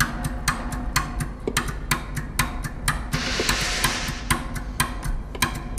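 A steady rhythmic run of sharp clicks, about three a second, forming the intro of a music track. A soft hiss swells briefly in the middle.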